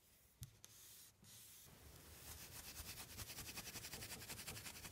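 Fingers rubbing dried glue off the joint of a rubber tea-cart tire strip: quiet, fast, even rubbing strokes that start about two seconds in and grow a little louder. Before that, near silence with one faint tap.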